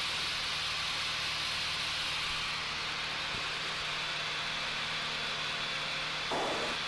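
Cabin noise of a Cessna 182P Skylane in cruise: its 270-horsepower engine and propeller give a steady drone under a constant rush of airflow hiss. A short blip sounds about six seconds in.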